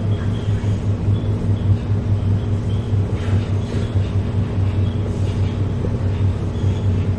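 Cabin running noise of a Metro Cammell 'MLR' electric multiple unit travelling at speed: a steady low hum with rumble from the running gear.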